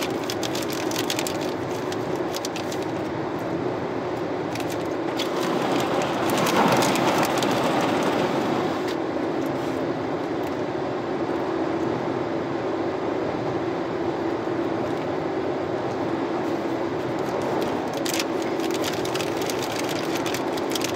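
Road and engine noise inside a small car's cabin at highway speed: a steady tyre rumble with a low engine drone. It swells briefly about seven seconds in.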